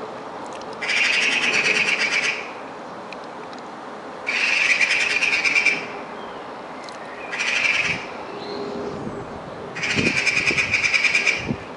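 Eurasian magpie giving its harsh rattling chatter in four bursts of about a second and a half, spaced a few seconds apart.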